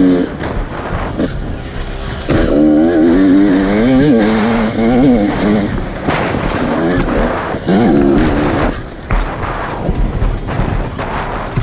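Enduro dirt bike engine revving in uneven bursts as the throttle is opened and closed on a rough trail. The longest surge comes a couple of seconds in, and a shorter one follows near the two-thirds mark.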